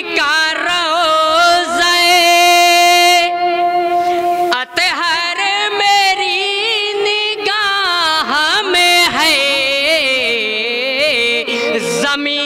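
A man singing a naat, an Urdu devotional poem in praise of the Prophet, in a chanted melody. He holds one long steady note for about four seconds, breaks briefly, then sings a second phrase with wavering, ornamented turns of pitch.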